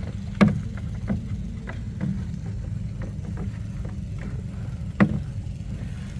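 A motor hums steadily and low, under the handling of a gill net being hauled over a small boat's side. Scattered light knocks come from the net, and two sharper knocks stand out, about half a second in and about five seconds in.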